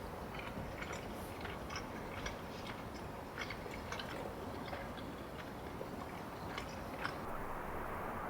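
Someone eating a quesadilla close to the microphone: chewing with a string of small crunchy clicks, over a steady low background rumble.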